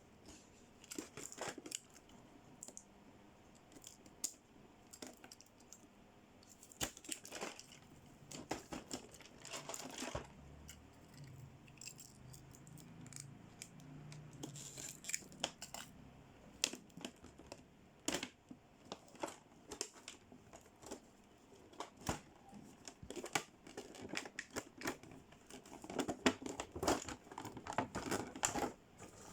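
Plastic toy packaging crinkling and tearing as it is handled and opened, with small clicks and taps in irregular bursts.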